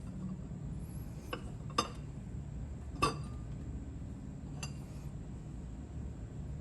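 Steel ratchet parts clinking together as the ratchet is put back together: four sharp metallic clinks with a brief ring, the loudest about two and three seconds in, over a low steady hum.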